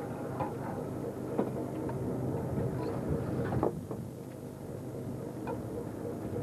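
Steady drone of a fishing boat's engine and deck machinery, with a few sharp knocks and clicks scattered through it.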